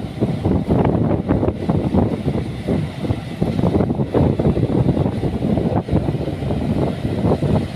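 Heavy earthmoving machinery working: a loud running engine with dense, continuous rattling and clanking.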